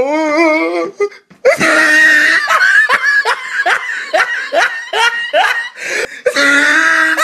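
Loud, hearty human laughter: a wavering giggle, then after a brief break a long string of repeated 'ha' bursts, about two or three a second.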